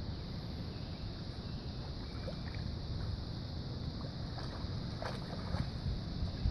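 Water sloshing and lapping in a shallow creek over a steady low rumble, with a few short splashes about five seconds in.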